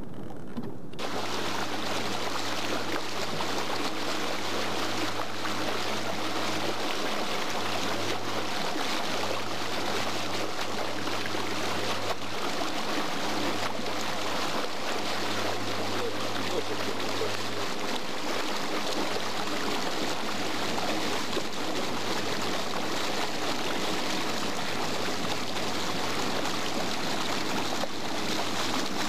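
Steady rush of water and air noise from a boat under way on open water, with a low steady hum underneath that drops out briefly a few times. The sound starts abruptly about a second in.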